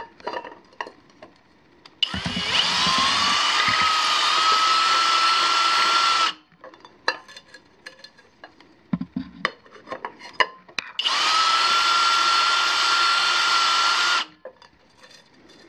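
Kobalt 24V XTR cordless drill spinning a countersink against a freshly drilled hole in a stainless steel pot, taking off the burr. It runs twice, for about four seconds and then about three, each time rising quickly to a steady whine and stopping abruptly. Between the runs there are small clicks of the pot being handled.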